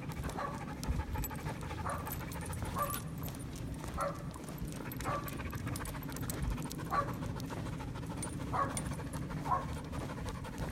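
Dog whining: short, high whimpers that drop in pitch, about eight of them, a second or so apart.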